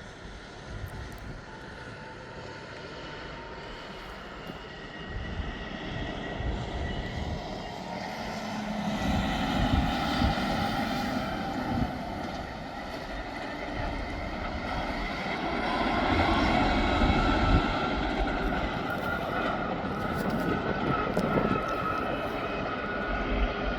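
Diesel engine of a large earthmover running as it approaches, with a steady engine whine, growing louder and loudest about two-thirds of the way through.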